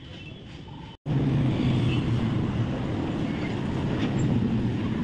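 Steady low rumble of background noise. It jumps much louder after a brief dropout about a second in.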